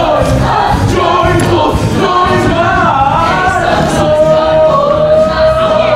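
Stage-musical ensemble chorus singing together, with a long note held from about two-thirds of the way in.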